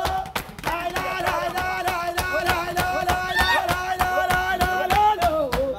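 A group of men singing a chant together in long held notes, to steady hand clapping at about four claps a second.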